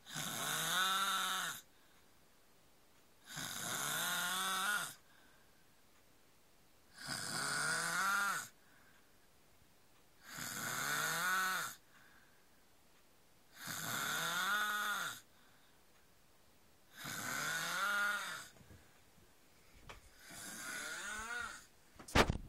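A man snoring in deep sleep: seven slow, regular snores, each about a second and a half long with a pitched, voice-like tone that rises and falls, coming about every three and a half seconds. A sharp knock sounds just before the end.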